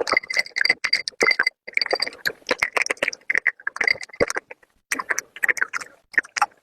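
Slate pencil being chewed close to the microphone: rapid, crisp crunching and cracking in runs, broken by short pauses between bites.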